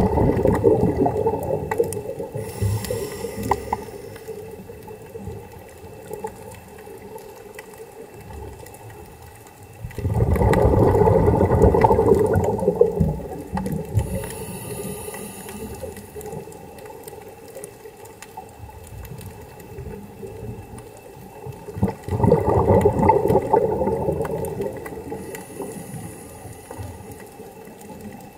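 Scuba diver breathing through a regulator underwater: three loud bubbling rushes of exhaled air about twelve seconds apart, each followed by a fainter high hiss as the next breath is drawn.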